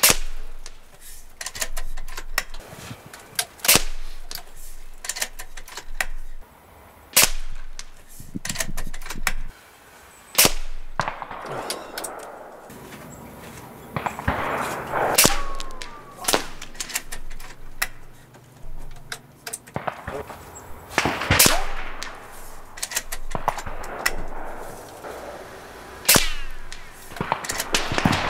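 AGT Vulcan 3 .22 PCP air rifle firing a string of shots, each a sharp crack, several seconds apart, with fainter clicks and knocks between them.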